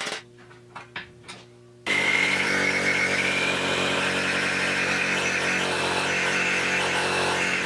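A few light clicks over a low hum, then about two seconds in a power tool's motor starts abruptly and runs steadily, with a high whine that rises slightly.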